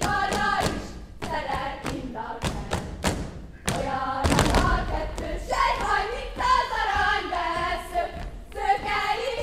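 A group of girls singing a Hungarian folk song for a karikázó circle dance, with stamping feet thudding on the stage. There is a louder thud about four seconds in.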